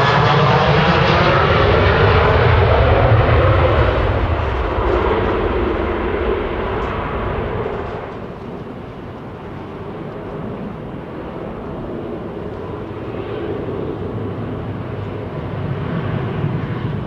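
A Ryanair Boeing 737's jet engines at takeoff thrust as it passes on its takeoff roll: loud, with a falling sweep of pitch as it goes by, then fading. After a cut about eight seconds in, the Eurowings Airbus A320-214's CFM56 engines are heard at a lower level, swelling near the end as its takeoff roll begins.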